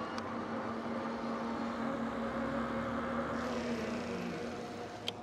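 Electric bike hub motor whining steadily while under way, over tyre and wind noise. About four seconds in the whine falls in pitch and fades as the motor eases off, and a single sharp click comes near the end.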